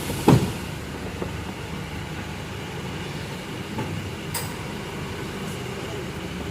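Steady rumble and road noise of a moving vehicle, with a sharp knock about a third of a second in.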